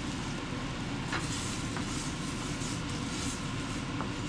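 Cream sauce with shrimp and spinach cooking in a stainless steel skillet: a steady hiss and rumble of simmering, with a few faint scrapes or clicks of a utensil stirring it in.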